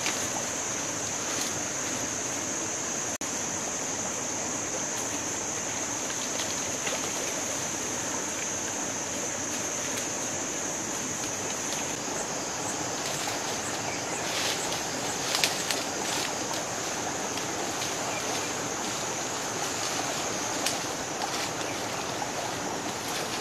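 Footsteps rustling through dry leaf litter and brushing past twigs and branches, with scattered crackles that come thickest a little past the middle. Under them runs a steady high-pitched insect drone.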